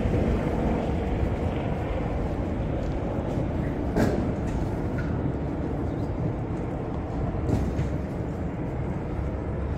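Steady low rumble of passing vehicles in city surroundings, with a short sharp knock about four seconds in.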